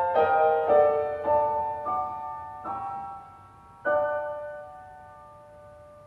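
Closing music: a slow series of struck chords, each left to ring. The last comes about four seconds in and dies away.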